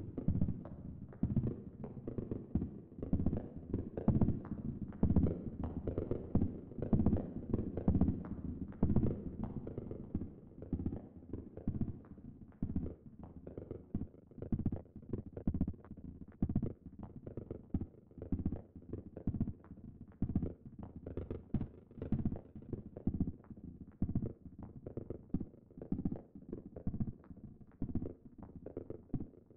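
Native Instruments PRISM modal/additive synthesizer playing rapid, irregular percussive hits: short knocks and clicks with most of their weight low in pitch. The hits are densest and loudest in the first third, then thin out and drop back.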